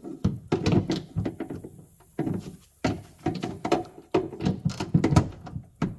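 Hand ratchet clicking in several short runs with brief pauses, tightening a door handle's fastener inside a truck door.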